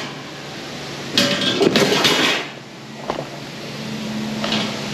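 Metal pickup screen bars for a poultry litter cruster clanking and clattering as they are handled and sorted, loudest in a cluster of knocks between about one and two and a half seconds in.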